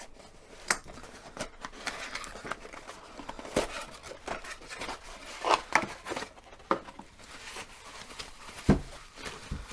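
A small mail package being opened by hand: packaging crinkling and tearing, with scattered clicks and knocks and one louder thump near the end.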